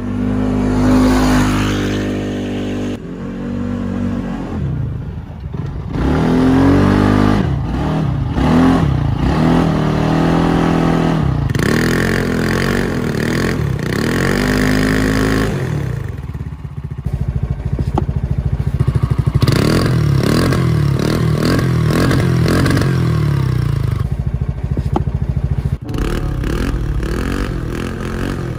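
Small Polaris side-by-side buggy's engine revving up and dropping back over and over as its wheels spin in loose sand, sending sand spraying. In the second half it holds higher revs more steadily, with a rattling clatter.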